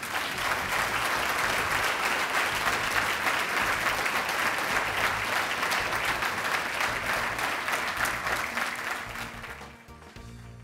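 Audience applauding: dense clapping that dies away about nine seconds in, with background music underneath.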